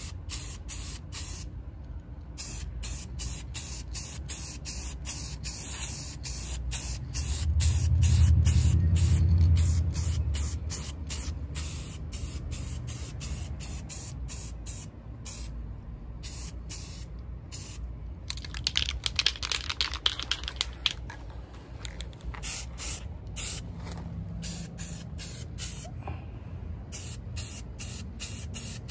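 Aerosol spray-paint can hissing in short, repeated bursts as the nozzle is pressed and released many times. A low rumble swells and fades about eight seconds in.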